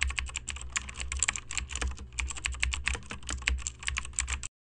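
Computer keyboard typing quickly, a dense run of keystroke clicks over a steady low hum, cutting off abruptly near the end.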